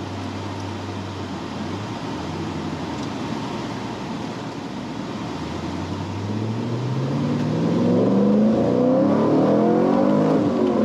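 Supercharged V8 of a 2010 Chevrolet Camaro SS running at a steady low hum, then revving hard under full-throttle acceleration in second gear from about six seconds in, its pitch climbing and the sound getting louder.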